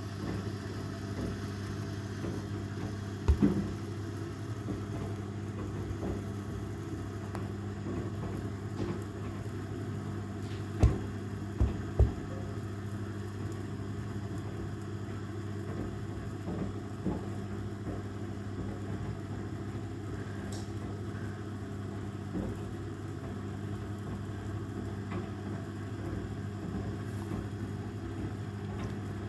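Washing machine running with a steady hum, a fidget toy tumbling inside it. A few sharp knocks from the toy, the loudest about three seconds in and a cluster around eleven to twelve seconds in.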